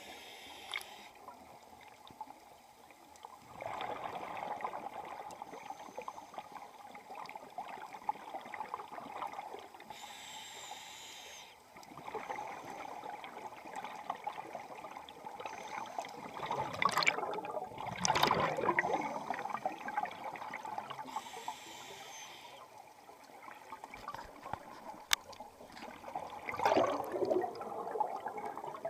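Scuba regulator breathing underwater, muffled: a hiss on each inhalation, then a burst of gurgling exhaust bubbles on the exhale, twice over.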